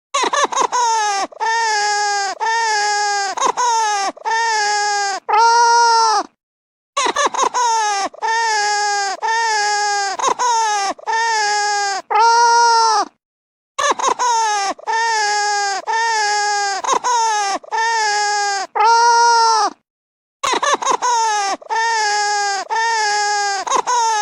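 Baby crying, a looped recording: a run of short, pitched cries ending in one longer, louder wail, then a brief pause, repeating the same way about every seven seconds.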